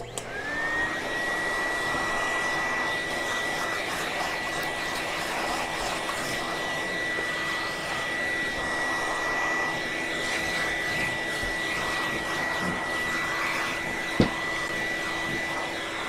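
Vacuum cleaner switched on, its motor whine rising briefly to a steady pitch and then running evenly, with a dusting-brush attachment worked over a metal power-supply case. A single sharp knock about fourteen seconds in.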